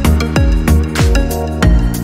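Background music: an electronic track with a steady beat of drum hits that drop in pitch, over held notes.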